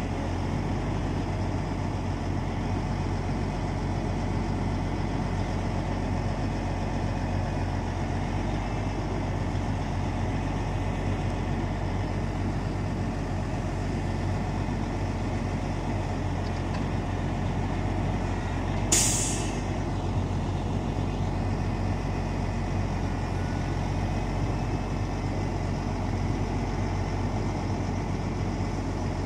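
Self-loading log truck's diesel engine running steadily, powering its hydraulic knuckle-boom loader as it lifts logs off the load. About two-thirds of the way through comes one short, sharp hiss of released air from the truck's air system.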